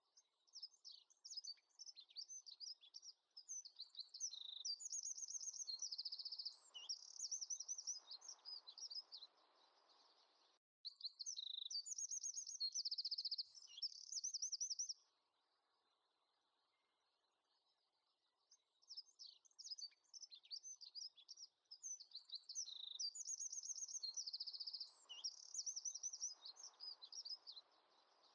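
Small songbird singing in rapid high trills and chirps, in phrases several seconds long with short pauses between them.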